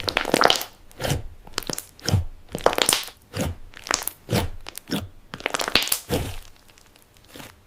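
Crunchy slime squeezed and pressed by hand, crunching and crackling in a run of short bursts about every half second, thinning out near the end.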